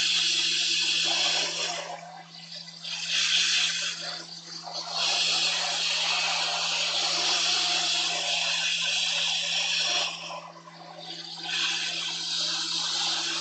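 BST-863 hot air rework station blowing hot air at full airflow onto a circuit board to desolder a surface-mount chip: a steady hiss that drops away briefly about two, four and ten seconds in, over a low steady hum.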